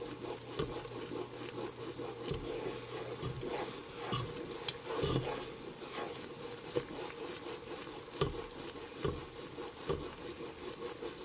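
Wooden spoon stirring and scraping the bottom of a metal pot of sugar syrup, in irregular strokes, over the sizzle of the syrup simmering as it cooks toward candy temperature for bee fondant.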